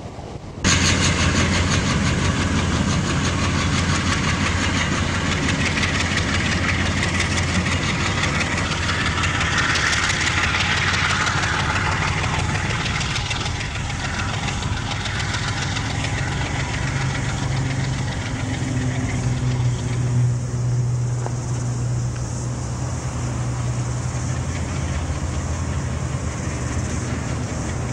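Locomotive-hauled passenger train running past, with a steady low locomotive hum under a broad rush of wheel and rail noise. The noise is loudest about ten seconds in, and the hum rises slightly in pitch about halfway through.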